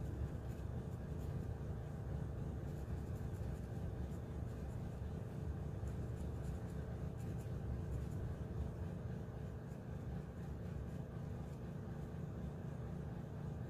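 Colored pencil scratching across paper in repeated small strokes, over a steady low hum.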